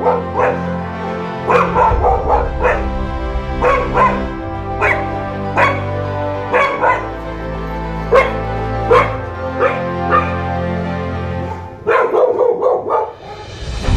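Dog barking and yipping in short sharp calls, roughly one a second, with a quick cluster near the end, over background music with a steady bass line.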